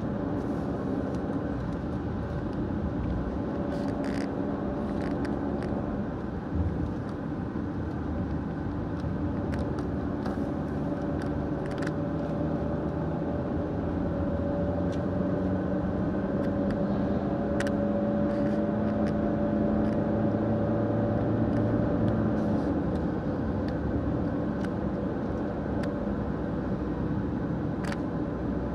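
Car driving, heard from inside the cabin: a steady drone of engine and road noise whose pitch drifts with engine speed and swells a little past the middle, with a few light clicks scattered through it.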